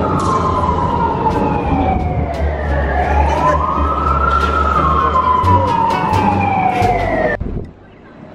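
Emergency vehicle siren wailing in slow rise-and-fall sweeps over a steady rumble of city traffic. It cuts off suddenly near the end.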